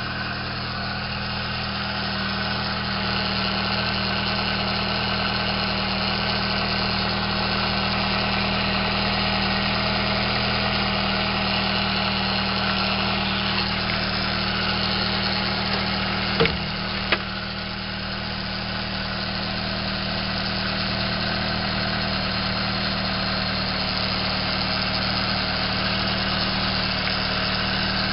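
Nissan Sentra's twin-cam 16-valve four-cylinder engine idling steadily with its newly replaced water pump. Two sharp clicks a little past halfway.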